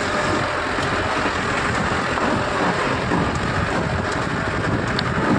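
Mahindra Bolero pickup, loaded with about two tons, moving slowly along a dirt track: its engine running under load together with the tyres on loose dirt, heard as a steady, dense rushing noise.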